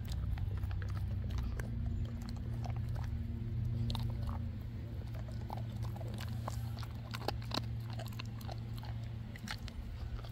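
A dog chewing a raw lamb shank, with irregular sharp clicks over a steady low hum.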